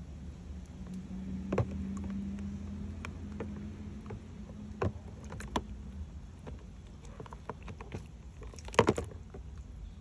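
Light clicks and knocks against a clear plastic tub holding a live lobster in shallow water: a few scattered taps, then a louder quick cluster near the end. A faint steady low hum runs under the first half.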